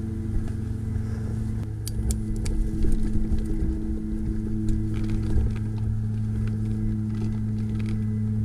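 Mountain bike rolling fast down a dirt trail: a steady low hum of tyres and rushing air on the bike-mounted camera, with clicks and knocks from rocks and the bike rattling, most of them about two to three seconds in.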